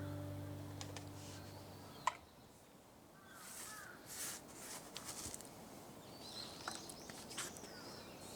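A music track fades out over the first two seconds, leaving faint outdoor ambience with a few short bird calls and scattered soft clicks and crackles.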